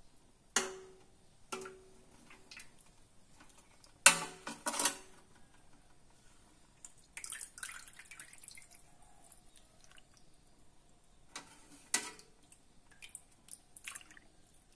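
Scattered sharp clinks of a metal ladle against an aluminium pot and ceramic dishes, some ringing briefly, with the loudest cluster about four seconds in. Soft splashing and dripping come between the clinks as clear spinach soup is ladled into a bowl.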